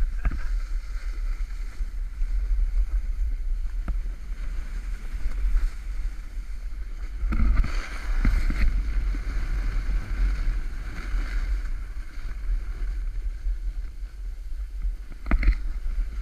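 Wind buffeting an action camera's microphone during a fast run down a groomed ski slope, a steady low rumble, with the hiss and scrape of edges sliding on packed snow that gets louder through a turn from about seven to eleven seconds in.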